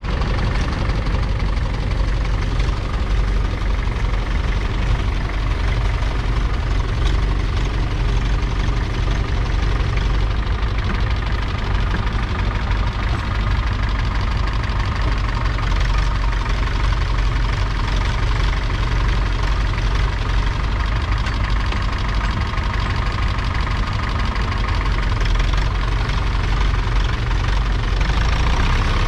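1965 Allis-Chalmers ED40's 2.3-litre four-cylinder diesel engine running steadily while the tractor pulls a two-furrow trailed plough through the soil.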